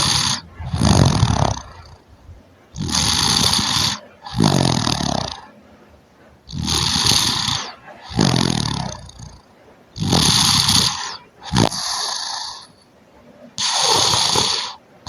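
A person snoring in deep sleep, a breath about every three and a half to four seconds, four full breaths in all. Each breath is a hissing rasp followed at once by a lower, rattling snore.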